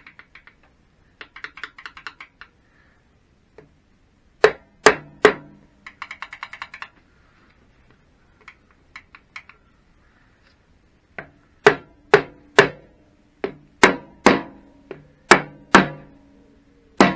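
Soft-faced copper-and-hide mallet tapping the aluminium gearbox cover of a Triumph Bonneville T120 home onto the case. There are three knocks about four and a half seconds in, then a run of about a dozen knocks, roughly two a second, from about eleven seconds on, each with a short metallic ring. Between the knocks come two spells of light clicking rattle as the gear parts are shifted by hand.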